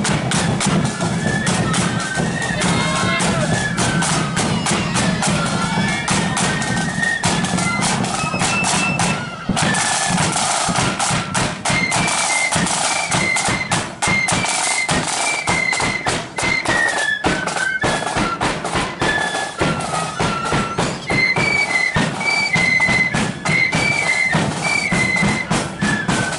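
Ulster loyalist marching flute band playing a tune on flutes over snare drums and cymbals.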